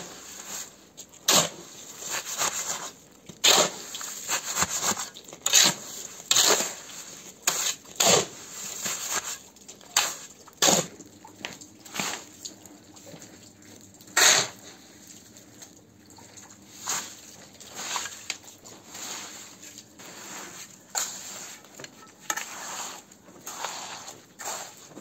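Steel shovel scraping, turning and slapping down wet concrete mix, a sharp stroke every second or two, with wet squelching as shovelfuls of concrete land and are worked.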